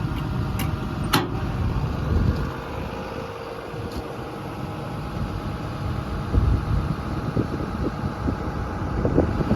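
Komatsu PC210LC-11 excavator's diesel engine idling steadily, running smoothly and sounding healthy. A couple of sharp clicks about a second in.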